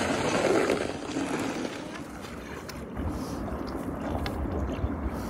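Nordic touring skates gliding and scraping over clear black ice, with wind buffeting the microphone. About two seconds in it drops to a quieter wind rumble with a few sharp ticks.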